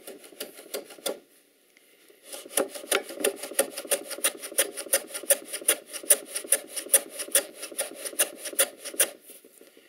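Hand plane on its side sliding along a shooting board, shaving end grain off a small wooden wedge in rapid, repeated short strokes. A few strokes, a pause of about a second, then a long, steady run of strokes that stops shortly before the end.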